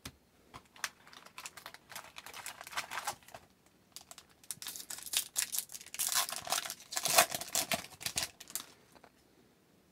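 Foil wrapper of a 2021-22 Upper Deck Extended Series hockey card pack being torn open and crinkled by hand: a run of sharp crackles, loudest about six to seven and a half seconds in.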